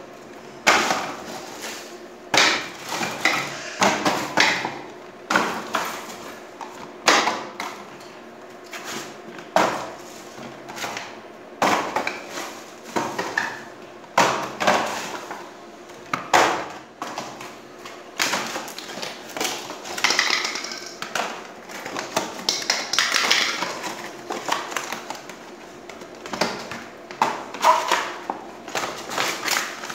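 Small cardboard boxes of LED bulbs set down and handled on a hard concrete floor: irregular knocks and thuds, several seconds apart, with cardboard rustling and scraping as a box is opened in the last third.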